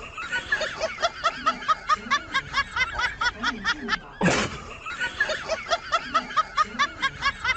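High-pitched laughter in a fast run of short notes, about four or five a second, broken about four seconds in by a loud gasping breath.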